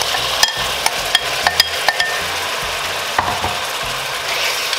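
Marinated pork cubes and marinade sizzling in hot olive oil with onion in a stainless-steel pot, while being stirred. Several light knocks against the pot, some leaving a short metallic ring, are spread through the sizzle.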